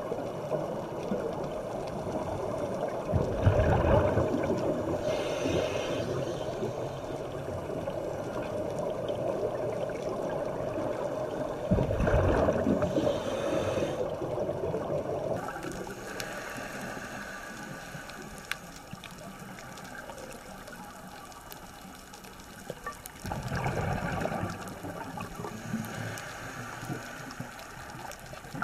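Underwater sound from a scuba diver's camera: a steady wash of water with three bursts of exhaled bubbles from a scuba regulator, about ten seconds apart.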